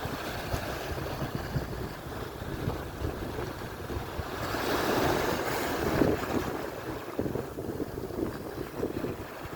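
Atlantic surf breaking and washing on the shore, with wind buffeting the microphone. A wave builds and washes in louder about halfway through.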